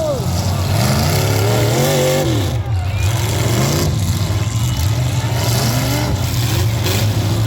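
Demolition derby trucks' engines revving over a steady low engine drone, their pitch rising and falling several times.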